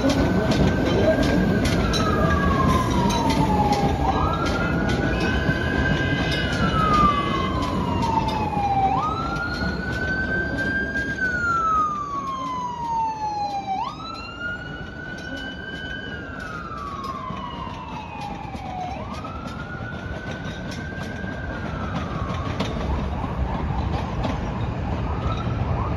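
Emergency vehicle siren wailing in slow cycles, each rising then falling, about every five seconds; a second, higher siren overlaps it in the middle. Under it, the rumble of PATH trains moving through the rail yard fades about halfway through.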